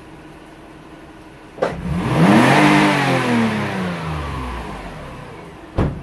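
Car engine snap-throttled from idle with all cylinders firing, no misfire: it revs up sharply and the revs fall back to idle over about two seconds. A sharp knock comes just before the rev and another thump near the end.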